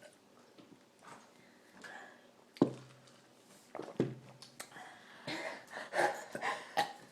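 Two short, abrupt burps, about two and a half and four seconds in, brought up after chugging fizzy soda. Softer breathy sounds follow near the end.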